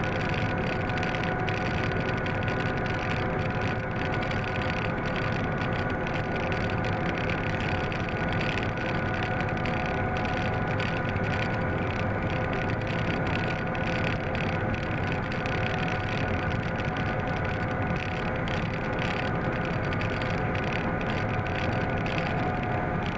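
Class 750 diesel-electric locomotive running under way, heard from its cab: a steady engine drone with a few constant tones over the rumble of the running gear and track.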